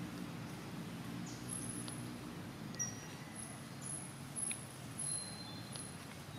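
Outdoor ambience: a steady low rumble with a few faint, short, high-pitched chirps and thin whistles scattered through it.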